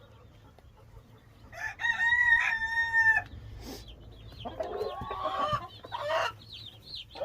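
A rooster crows once, a single drawn-out call of about a second and a half. Hens cluck and squawk after it, with faint high peeping of chicks.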